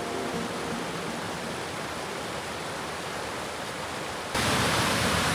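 Creek water rushing, a steady hiss. About four seconds in it cuts suddenly to louder, closer rushing water at a creek crossing.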